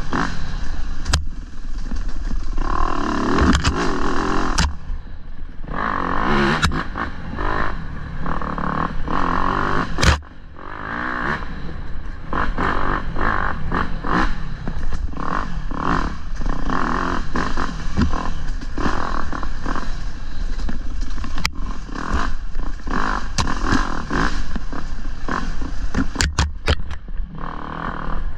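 Dirt bike engine revving up and down as the rider goes on and off the throttle along a rocky trail, with sharp knocks and clatter from the bike hitting rocks, several of them close together near the end.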